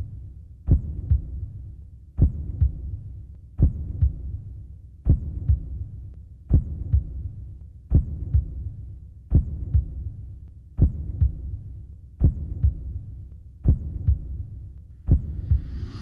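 Slow heartbeat sound: paired low thumps, a strong beat followed by a weaker one, repeating steadily about every second and a half over a low hum.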